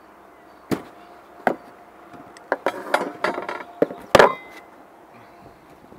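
Handling of a beehive lid as it is lifted off and set down. Two sharp knocks come first, then a run of clattering and rustling, with the loudest knock a little past four seconds.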